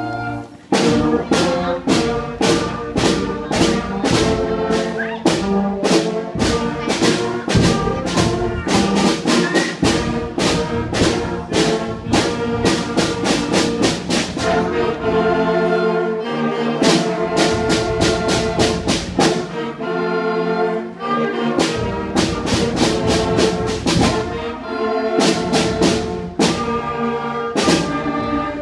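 Brass-heavy band music with a steady, regular drum beat.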